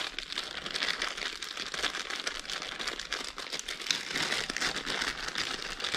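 Clear plastic packaging crinkling and rustling as hands pull a phone-mount cradle out of it, a continuous run of small crackles.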